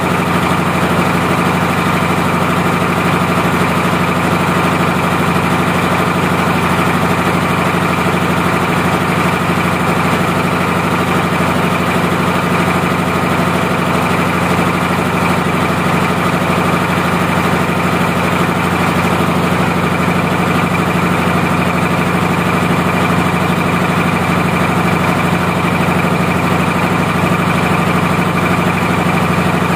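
Single-cylinder stationary diesel engine idling steadily while it warms up.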